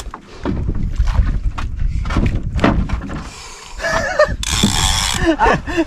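Low rumble of a bangka outrigger boat under way, with scattered knocks and clicks as a big-game jigging reel is cranked against a large fish; a short burst of hiss about four and a half seconds in.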